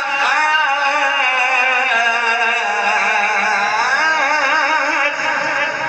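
A man's voice chanting Quranic recitation (tilawat) in a melodic style, drawing out long held notes with a wavering, ornamented pitch that sinks lower about two seconds in.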